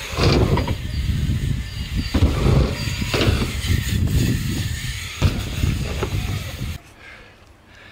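BMX bike tyres rolling over a wooden ramp with a heavy rumble, broken by a few sharp knocks from the bike landing and hitting the ramp. The sound drops away abruptly near the end.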